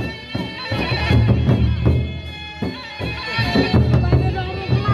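Sasak gendang beleq ensemble playing: large double-headed barrel drums beaten with a stick on one head and the hand on the other, with steady ringing tones sounding over the drum strokes. The playing eases briefly about halfway through, then picks up again.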